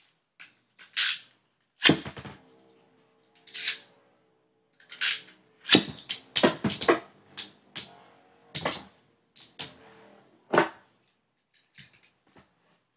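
Metal Fight Beyblades, Rock Leone 145WB and Storm Pegasus 105RF, spinning and clashing against each other and the walls of a plastic stadium: a series of irregular sharp clacks, thickest about halfway through, some followed by a brief ringing.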